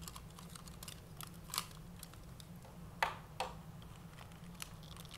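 Plastic clicks and knocks of a Power Rangers Legacy Collection Megazord toy being handled, its parts snapping back together: a few scattered sharp clicks, the clearest about a second and a half in and around three seconds in.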